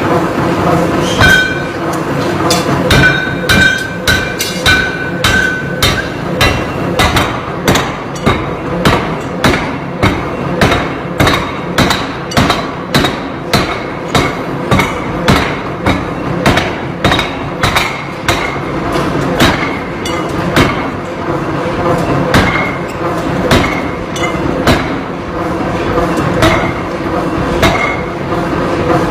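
Hammer blows on metal in forging, struck in a steady rhythm of about one and a half to two a second, with a metallic ring after some strikes, over a steady machinery hum.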